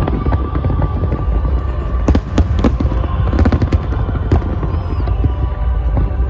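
Fireworks display: a continuous low rumble of aerial shell bursts, with sharp cracks and pops scattered through and bunching together about two seconds and three and a half seconds in.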